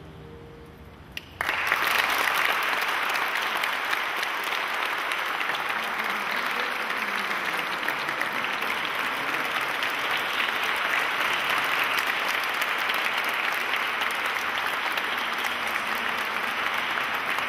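The last note of the music fades, then about a second and a half in an audience breaks into applause that keeps up steadily.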